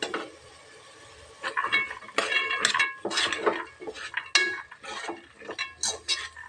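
Metal ladle stirring peas and masala in a pressure cooker: one knock at the start, then from about a second and a half in, repeated scrapes and clinks of metal on metal with a short ring.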